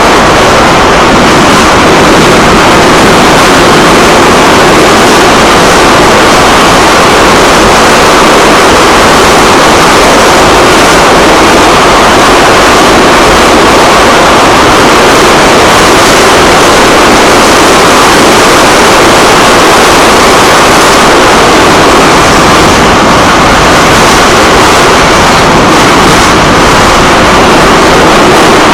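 Moscow Metro train running at speed between stations, heard inside the carriage: a loud, steady rushing noise.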